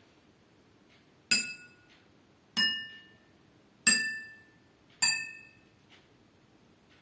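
Drinking glasses holding different amounts of water tapped four times in turn, about a second apart, each strike ringing with clear tones that fade away.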